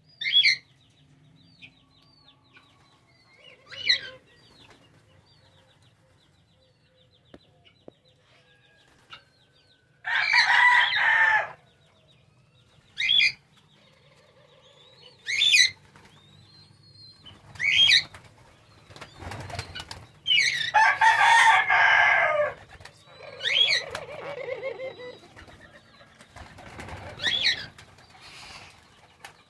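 Wings flapping as a ringneck dove squab is fed by its parents at the nest, with short sharp bird calls every few seconds and two longer, louder crows, one about 10 seconds in and one about 20 seconds in, typical of chickens.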